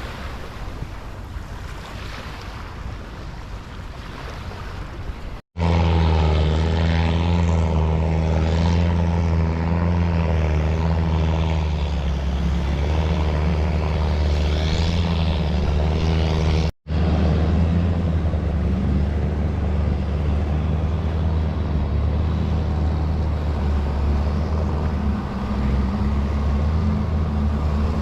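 Wind and water at first. Then, after a sudden cut, a longtail boat's engine runs loud and steady, a low even drone with a slightly wavering upper tone. It breaks off for an instant about two-thirds of the way through and carries on unchanged.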